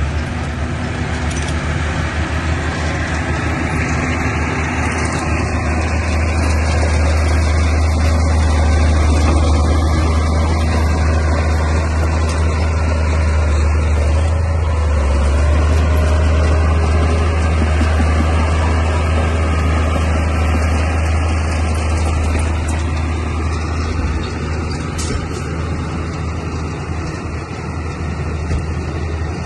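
Crawler bulldozer's diesel engine running steadily with a deep low hum, growing louder through the middle and easing off a little near the end.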